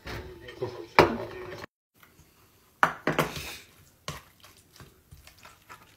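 Wooden spatula scraping and knocking against metal bowls as stiff millet dhido is served, then a spoon clinking on a pan of greens and a brass plate. Sharp knocks about a second in and about three seconds in.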